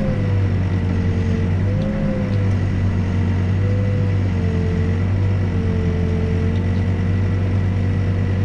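Backhoe's diesel engine running steadily while digging a footing, with a whine that dips and rises in pitch as the work goes on.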